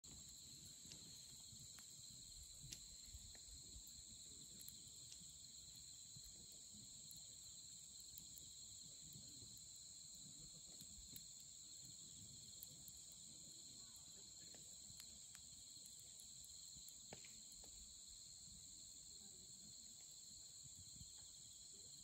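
A steady, faint chorus of chirping night insects in two high, even bands, with scattered sharp pops and crackles from burning firewood.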